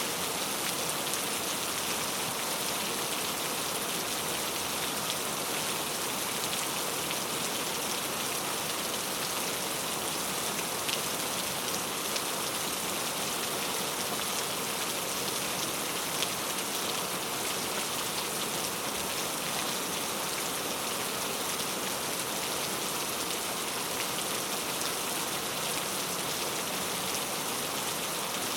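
Heavy, loud rain falling steadily, a dense even hiss of drops striking a surface with faint individual drop ticks through it.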